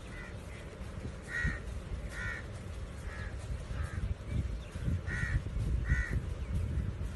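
A crow-like bird cawing, short calls repeated about once a second. Underneath, the low rumble of skateboard wheels rolling over brick paving grows louder in the second half.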